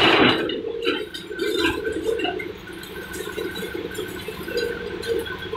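Brick and concrete rubble crashing down, dying away within the first half second, then a Caterpillar 320B hydraulic excavator's diesel engine and hydraulics running steadily, with scattered small knocks of debris.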